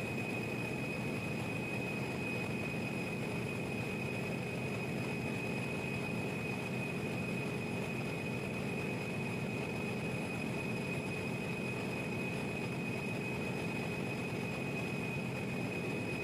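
Steady drone of a large 18-megawatt power-plant generator engine running, with a constant high-pitched whine over it.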